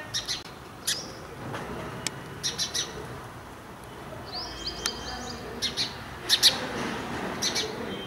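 Indian house sparrow chirping: short, sharp cheeps in small clusters of two or three, with a quick run of higher notes about halfway through.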